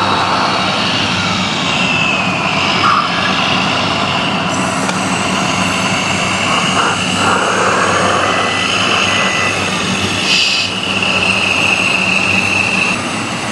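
Radio-controlled model construction trucks running: electric motors and gearing whine, rising and falling in pitch as the models are driven, over a steady low hum.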